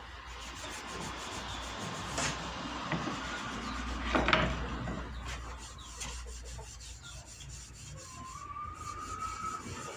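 A cloth rubbing grease into the face of a wooden cutting board: a continuous scrubbing on the wood, with a louder scrape about four seconds in.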